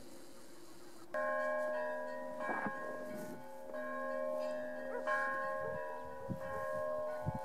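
Bells ringing, starting suddenly about a second in and struck again roughly every second and a half, each strike a cluster of ringing tones that hang on.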